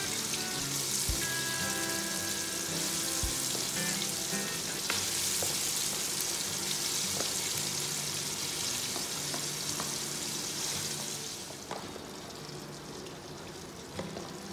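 Marinated chicken pieces sizzling as they fry in hot sunflower oil with browned onions in an aluminium pot. The sizzle dies down sharply about three seconds before the end.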